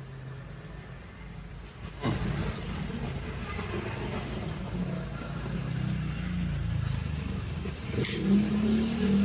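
A motor vehicle engine running and building up, a low rumble that grows louder from about two seconds in and takes on a steadier, stronger tone near the end. A sharp click sounds about two seconds in.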